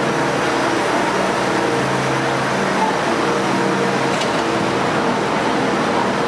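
Steady, loud crowd murmur in an ice-rink arena: many voices blending into a continuous hum.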